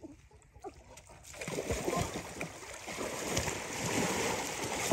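Water splashing and sloshing as people wading in a shallow muddy pond work their hands through the water for fish. It starts about a second in and continues as a dense run of irregular splashes.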